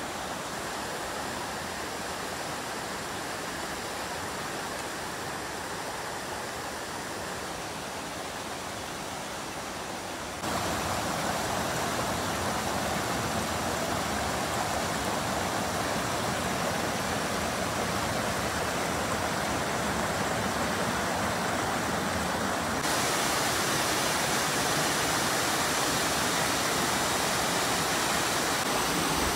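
Mountain brook cascades and a waterfall rushing over rock: a steady rush of water that steps abruptly louder about a third of the way in and again about three-quarters of the way through, as bigger falls come on.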